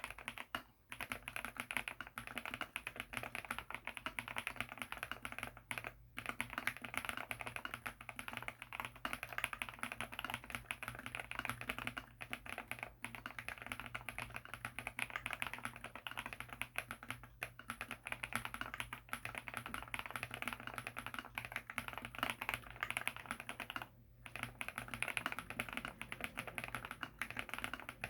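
Mechanical keyboard fitted with SW x Gateron Deepping linear switches (nylon housings, POM stem, factory-lubed) being typed on quickly in a steady stream of key clicks, with brief pauses about six seconds in and near the end.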